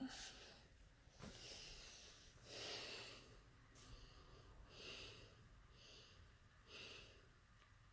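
A person breathing heavily and faintly, about six breaths in a row, through a painful dystonic spasm of the leg.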